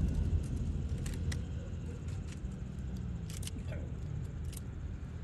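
Aerial fireworks: a low rumble fades after a shell burst, and a few faint, sharp crackles and pops sound through it.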